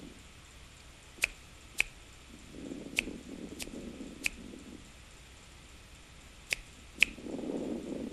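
Seven sharp, brief clicks, in a pair, then three, then another pair, each about half a second apart. Soft, muffled low rushing sounds come in between and after the clicks.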